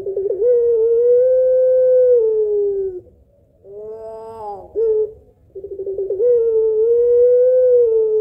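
Puter pelung (white ringneck dove) singing its long coo: two drawn-out notes of a couple of seconds each, each opening with a quick stuttering run and sliding down at its end, with a shorter call between them.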